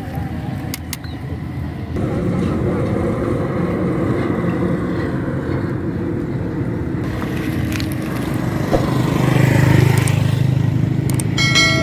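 An engine running steadily nearby, a low hum that swells about nine seconds in, with a few sharp clicks over it.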